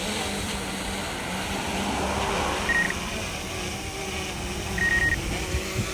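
Wind buffeting the microphone over a steady low motor hum, with two short high beeps: one near the middle and one near the end.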